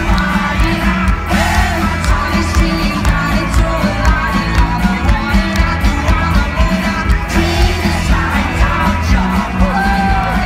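Live rock band playing loud through a festival PA: electric guitar, bass guitar and drums with a steady beat, and a male voice singing the lead.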